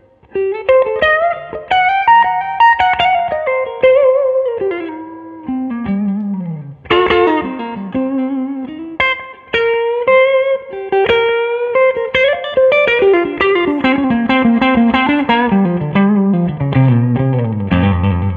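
Solo electric blues guitar, an SVL Strat-style guitar through a Two-Rock Classic Reverb Signature amp, playing improvised single-note phrases with string bends. Near the end it closes on a run descending into low notes.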